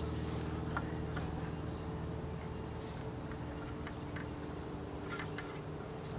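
An insect chirping steadily, a high pulsing note about three times a second, over a low steady hum. A few faint clicks come as the cart's metal shaft is fitted into the dog's harness.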